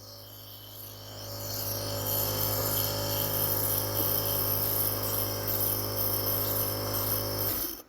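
Electric compressor nebulizer running: a steady motor hum with a hiss on top, growing a little louder over the first two seconds and cutting off abruptly near the end.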